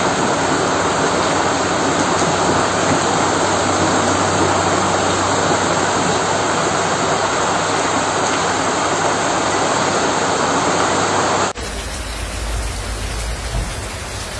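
Steady, loud rushing of water from the storm and flash flooding. About three-quarters of the way through it cuts abruptly to a quieter noise with a deep rumble.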